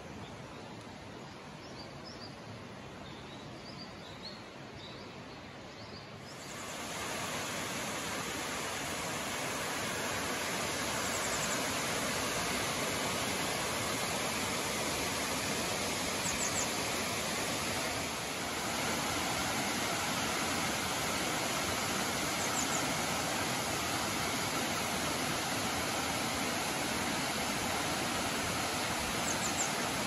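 Steady rush of water from a curtain waterfall falling over a cliff into a pool, stepping up sharply in loudness about six seconds in. Birds chirp faintly, most often in the first few seconds.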